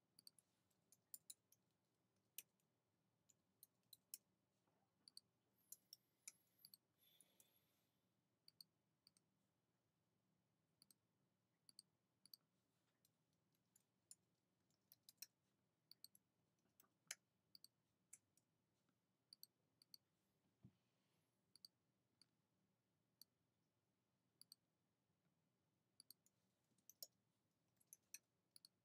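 Faint, irregular clicks of a computer mouse and keyboard, one to a few a second, with a short rustle about seven seconds in.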